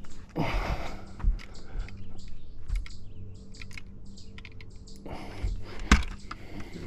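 Irregular clicks and knocks of fishing gear being handled on a bass boat's deck as the landing net is picked up and swung out, with two louder knocks, about a second in and near the end.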